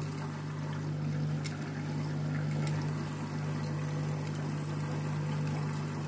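Front-loading washing machine in its wash phase, the drum tumbling wet white laundry so that water sloshes, over a steady low motor hum.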